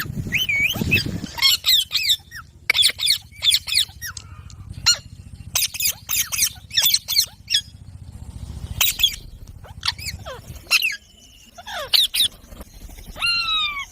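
Several Indian ringneck parrots calling: sharp, shrill screeches in quick runs, many of them falling in pitch, with a few longer falling calls near the end.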